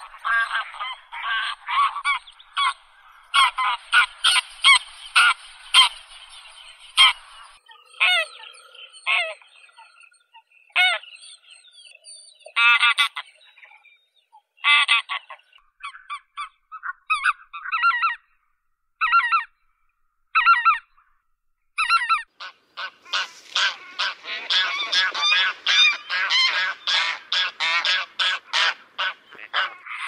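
Greylag geese honking. Many calls overlap at first, they thin to single spaced honks in the middle, and a dense chorus of a calling flock takes up again for the last part.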